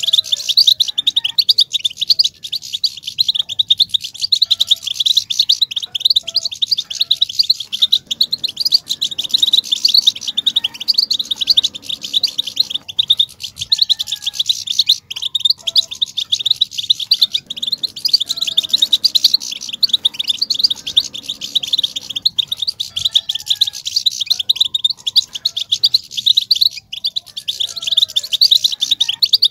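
European goldfinch chatter ('batbata'): a dense, unbroken stream of rapid high-pitched chirps and twitters. This is the excited twittering used to provoke male goldfinches into song.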